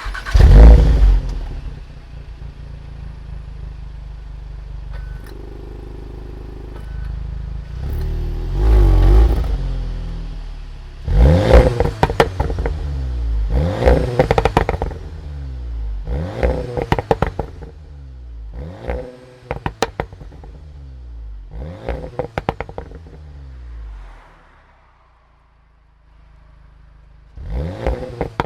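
2017 VW Golf R's turbocharged 2.0-litre four-cylinder through an Akrapovic exhaust: a warm start-up with a loud flare, a steady idle, then about six quick blips of the throttle, each followed by crackles and pops on the overrun. The engine goes quiet a few seconds before the end, then fires up again with another flare.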